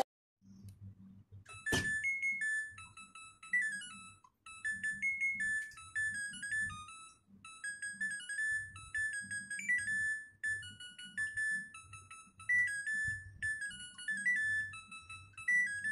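Music: a quiet passage with a simple high melody of short single notes, like a ringtone or keyboard tune, over a soft low pulse.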